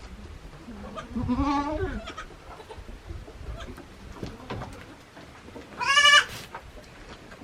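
Goats bleating twice: a lower, quavering bleat about a second in, then a louder, higher-pitched bleat near the end.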